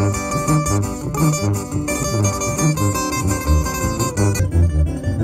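Live band music from two strummed acoustic guitars and a sousaphone playing a bouncing, alternating bass line, amplified through a large outdoor line-array PA.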